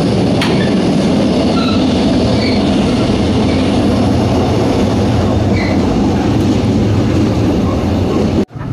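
Steady rattle and rumble of a moving passenger train in the vestibule between cars, with the clatter between the coaches (덜컹덜컹) and a few brief high wheel squeaks. The sound cuts off suddenly near the end.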